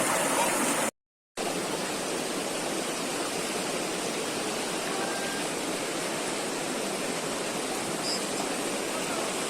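Steady rush of flowing water, with a brief dead-silent break about a second in.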